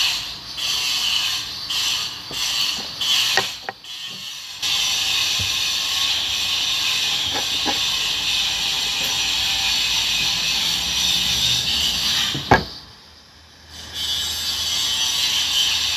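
Handheld Makita power cutter cutting in the background: a few short bursts at first, then a long steady cut that briefly stops after a sharp knock and starts again.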